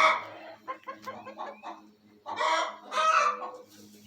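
Domestic hens clucking and squawking. There is a loud call right at the start, short clucks after it, and two louder drawn-out calls about two and a half and three seconds in.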